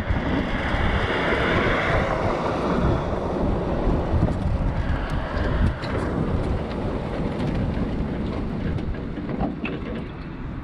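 An open-top MG TD roadster rolls slowly with wind and road noise. Its 1.3-litre XPAG four-cylinder engine is running out of fuel and will not rev past about 1500 RPM. The tyres roll onto gravel partway through, and the sound eases a little near the end.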